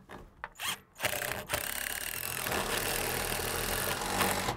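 A few short knocks, then from about a second in a cordless drill runs steadily for roughly three and a half seconds. It is driving a screw that fixes a roller-shade bracket into the wooden wall, and it stops near the end.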